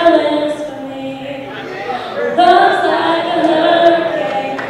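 Several voices singing a song together, led by singers on stage with microphones, with the echo of a large hall. The singing drops back about a second in and swells again just under two and a half seconds in.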